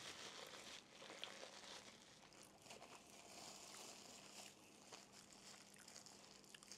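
Faint crinkling and rustling of a thin plastic bag being handled and unwrapped, over a low steady hum.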